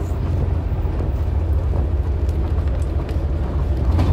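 Vintage bonneted bus engine running under way, a steady low drone with road noise.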